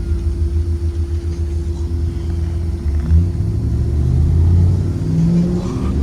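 A 2023 Blue Bird Vision school bus with a Ford 7.3L V8 gas engine, running with a low rumble. About three seconds in, the engine note grows louder and rises in pitch as the bus pulls harder.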